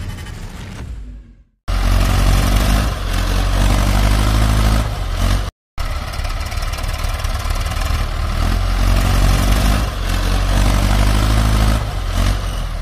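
Intro music fades out over the first second and a half; then a Mahindra Arjun 555 DI tractor's diesel engine runs loud and hard under heavy load, towing a stuck Swaraj 744 FE with a sugar cane trolley. The sound cuts out briefly about five and a half seconds in.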